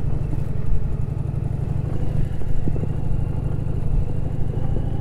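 Indian Challenger's V-twin engine running at a low, steady pace as the motorcycle rolls slowly over a dirt track, with a few light knocks about halfway through.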